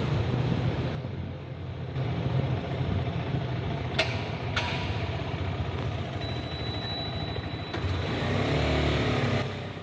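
KTM 250 Adventure's single-cylinder engine running at low speed, with two sharp clicks about four seconds in.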